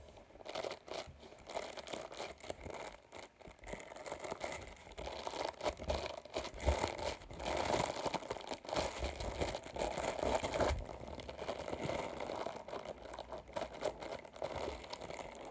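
Crinkling and crackling of a thin, stiff textured sheet being bent and handled close to the microphone. It is a dense run of small clicks that grows louder in the middle and eases off toward the end.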